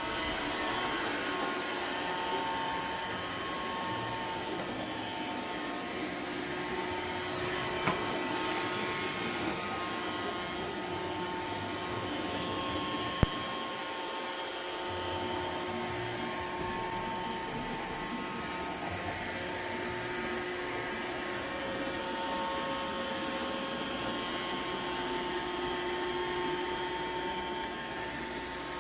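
iRobot Roomba 675 robot vacuum running: a steady motor and suction hum with a wavering whine. A sharp click comes twice, about 8 and 13 seconds in.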